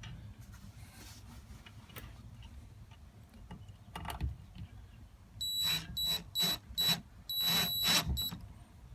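Cordless drill driving screws into wood in short trigger bursts: each burst carries a steady high motor whine along with the rasp of the screw, about five bursts in the second half. It comes after a single knock about four seconds in.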